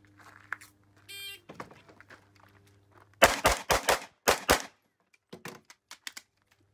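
Shot-timer start beep about a second in. About two seconds later a pistol-caliber carbine fires six rapid shots: four close together, then a short pause and two more. Faint small clicks follow near the end.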